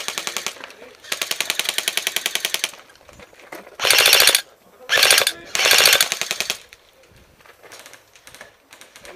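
Airsoft guns firing rapid full-auto bursts: a long burst in the first few seconds, then three shorter, louder bursts around the middle. After that only faint scattered shots.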